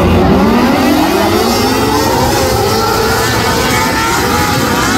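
A field of 600cc micro sprint cars accelerating together at the start of a heat race, several engines revving up at once and rising in pitch over the first few seconds, then running on at speed.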